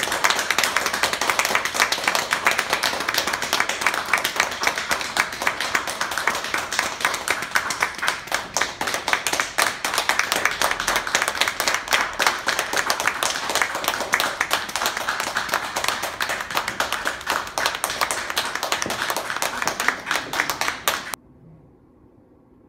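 Audience applauding: many hands clapping in a dense, steady patter that cuts off suddenly near the end.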